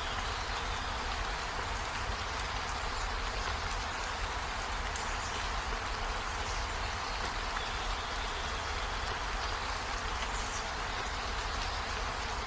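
Steady rainfall, an even hiss of rain with a low rumble underneath.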